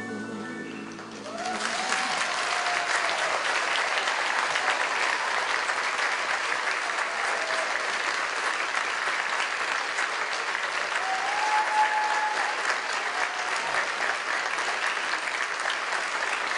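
The last held chord of the music dies away, then a theatre audience breaks into applause about a second and a half in and keeps clapping steadily, with a few shouted cheers rising over it.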